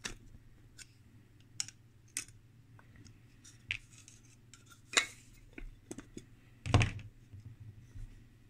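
Scattered light metal clicks and clinks from a screwdriver and hands working the screws and lid of a small cast-metal box, one knock late on louder than the rest. A low steady hum runs underneath.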